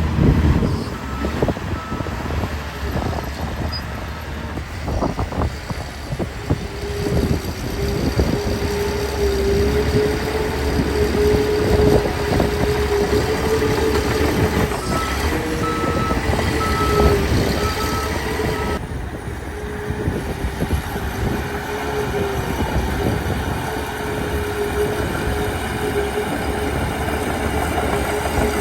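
Caterpillar 816D earthmover's diesel engine running with a steady whine and clanks, while a reversing alarm beeps twice about a second in and then in a run of beeps around the middle.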